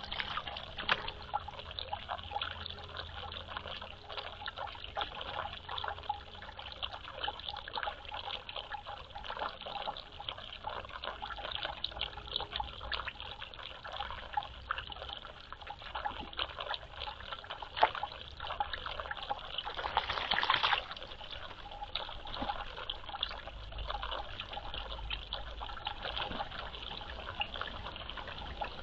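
Water trickling and splattering in a dense run of small drips and splashes, with a brief louder splash about twenty seconds in.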